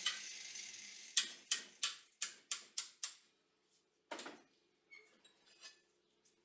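Six quick, sharp taps, about three a second, followed by a few fainter scattered clicks.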